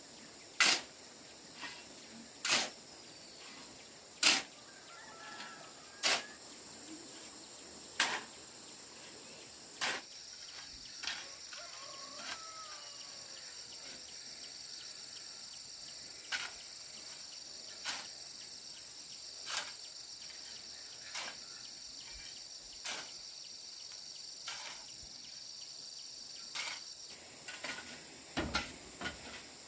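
Sharp knocks repeated about every two seconds, loudest over the first ten seconds and fainter after, over a steady high-pitched hum, with a few faint chirps.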